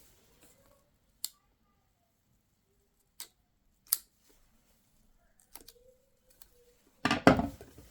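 Packaging being opened: four sharp isolated clicks spread over several seconds, then near the end about a second of loud crinkling and tearing of plastic wrap.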